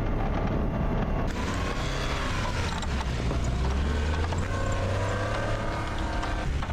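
Small kei truck fitted with rubber tank tracks driving over snow, its engine running steadily and rising and falling in pitch as the speed changes.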